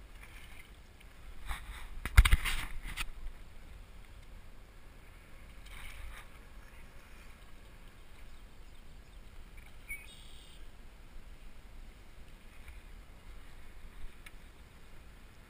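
A hooked largemouth bass splashing at the water's surface beside a float tube as it is reeled in. There is one loud burst of splashing about two seconds in and a smaller one around six seconds, with quiet water noise in between.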